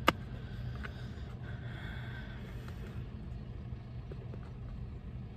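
Steady low hum inside a parked car, with a single sharp click just after the start.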